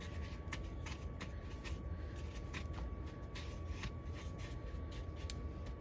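Soft, irregular gritty scraping and rustling of cookie dough balls being pressed and rolled in a bowl of granulated sugar, over a steady low hum.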